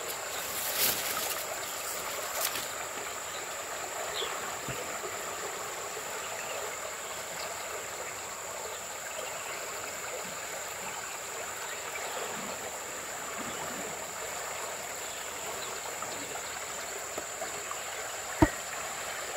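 Shallow stream water flowing steadily, with a faint steady high whine over it and one sharp tap near the end.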